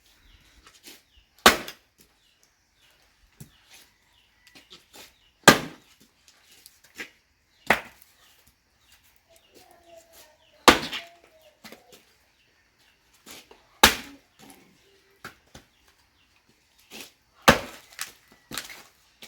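Firewood being split by chopping: about six heavy blows a few seconds apart, with lighter knocks and wood clattering in between.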